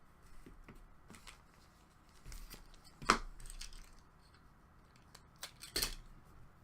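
Hockey card packs and cards being handled: short rustles, crinkles and light clicks of wrapper and card stock, with a sharper snap about three seconds in and another burst of rustling near six seconds.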